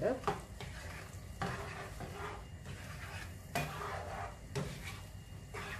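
A utensil stirring chicken pieces through thick sauce in a nonstick frying pan, with irregular scraping strokes against the pan over a light sizzle as the cornflour-thickened sauce cooks.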